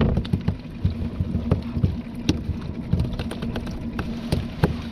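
Small skiff at sea with a steady motor hum over a low rumble. Scattered sharp knocks and clicks come from fish and gear being handled at the bait tank.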